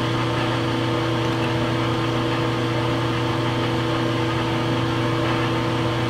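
Metal lathe running with its spindle turning and no cut being taken: a steady, even hum from the motor and gearing.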